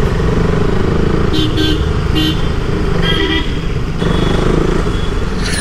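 KTM Duke 200's single-cylinder engine running steadily at low speed in traffic. Several short vehicle horn toots sound between about one and three and a half seconds in.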